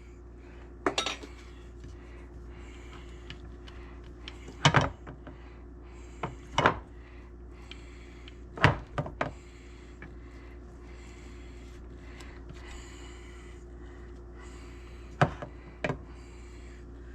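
Kitchen dishes and utensils knocking and clinking as they are handled, in scattered sharp knocks, some in quick pairs and threes, over a steady low hum.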